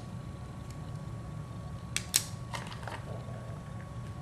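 A few light clicks and taps of hand tools being handled (pliers and a clear plastic screwdriver case), about two seconds in, over a steady low hum.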